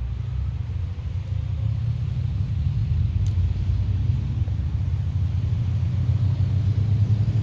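Deep, low rumble of a jet airliner's engines, growing steadily louder as the aircraft approaches.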